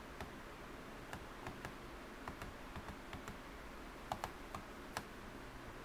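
About a dozen light, irregularly spaced clicks of computer mouse buttons and keys, over faint steady room noise.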